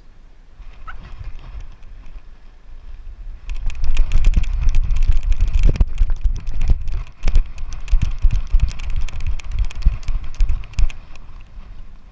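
Rapid, irregular thumps and clicks of a jostled GoPro camera over a low rumble. They start suddenly about three and a half seconds in and die down near the end.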